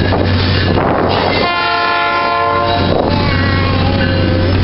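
Northwestern Pacific 2009 diesel locomotive passing close by, its engine running and wheels rolling. About a second and a half in it sounds one long air-horn blast, followed by a weaker, broken horn sound.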